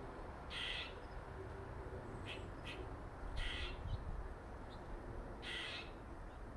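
A squirrel giving harsh, raspy calls: a longer call every two to three seconds, with two short sharp ones between.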